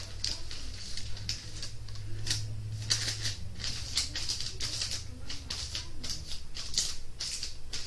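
Parchment paper crinkling as it is folded and creased by hand, in quick, irregular crackles.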